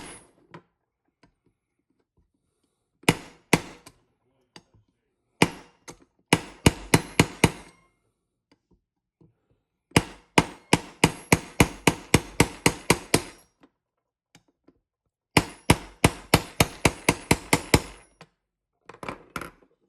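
Small hammer striking a flat pin punch to drive the trigger-guard roll pin into an AR-15 lower receiver. Sharp metallic taps come in runs of quick strokes, about four a second, in several bursts with short pauses between.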